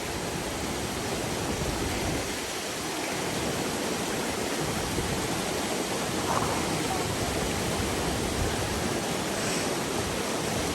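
Rain-swollen waterfall rushing steadily, heard from near its lip: a dense, even wash of falling water.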